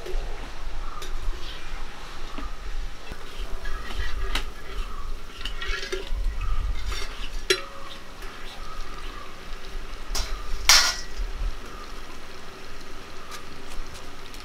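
Murukku deep-frying in hot coconut oil with a steady sizzle, while a perforated steel skimmer stirs and scrapes against the metal frying pan with scattered clinks. One sharp, loud clink of the skimmer on the pan comes about eleven seconds in.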